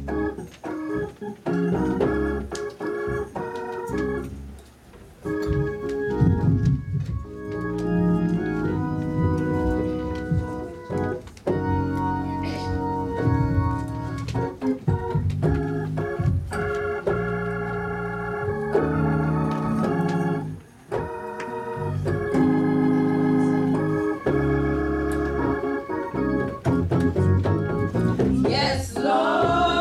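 Church organ playing held chords that change every second or two. Near the end a rising sweep leads into held, wavering tones.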